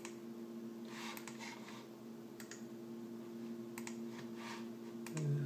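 Scattered clicks from a computer mouse and keyboard, a few at a time, over a steady low hum.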